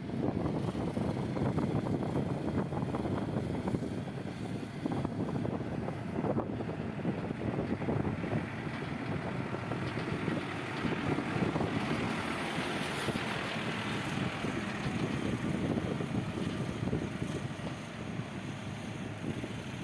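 Diesel engine of a heavy construction machine running steadily, with rattling and wind on the microphone.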